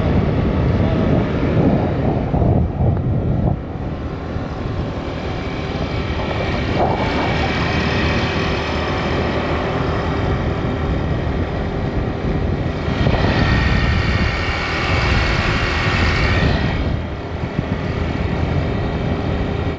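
Wind rushing over the microphone with engine and road noise from a two-wheeler riding through traffic. A louder, higher-pitched stretch comes about two-thirds of the way through.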